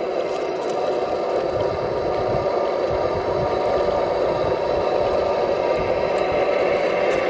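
Radio-controlled model construction vehicle running: a steady motor-and-gearbox whine with faint rattles and clicks.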